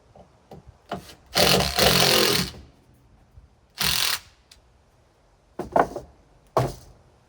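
Cordless drill running a screw in bursts: one long run about a second and a half in, then a short burst near four seconds, followed by a few knocks.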